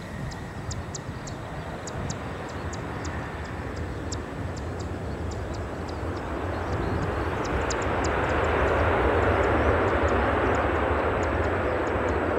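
The General Electric GE90 turbofan engines of a Boeing 777-300ER give a steady jet roar during the landing rollout just after touchdown. The roar builds from about halfway through and is loudest a couple of seconds later.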